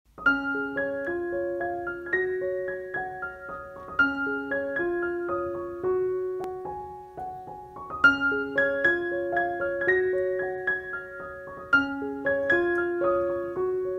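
Background piano music: a gentle melody of single struck notes, repeating a short phrase about every four seconds.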